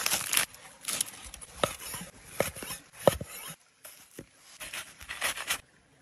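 Aluminium foil crinkling as a foil packet of cooked steak is unwrapped by hand, in short rustling bursts about a second apart with a few small knocks of handling.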